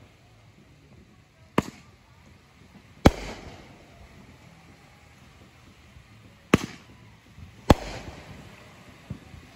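Aerial fireworks going off: four sharp bangs, each followed by a short echoing tail, with a longer gap between the second and third, and a weaker pop near the end.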